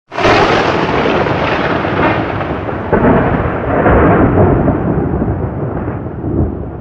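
Thunder sound effect: a loud rolling rumble that starts suddenly, swells twice in the middle and slowly loses its high end.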